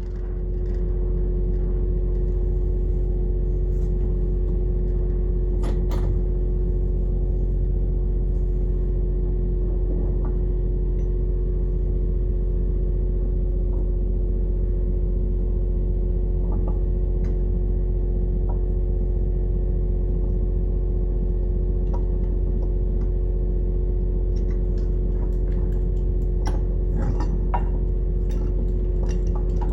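A machine running with a steady hum, and a few light clinks now and then.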